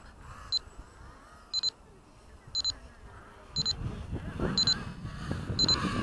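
Radio-control transmitter beeping with short high beeps about once a second. From a little past halfway, gusting wind buffets the microphone with a rising low rumble.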